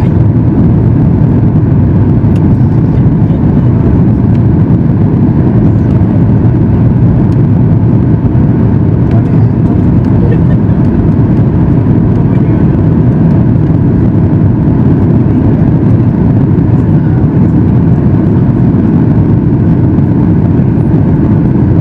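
Cabin noise of a Boeing 737 MAX 8 climbing out after takeoff: its CFM LEAP-1B engines and the airflow around the fuselage, heard from a window seat over the wing as a deep, even rumble.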